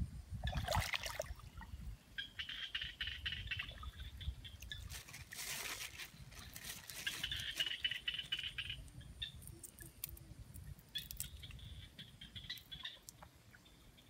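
Thin plastic bag crinkling and rustling as it is handled in shallow water, with splashing and trickling water in bursts, over a low rumble.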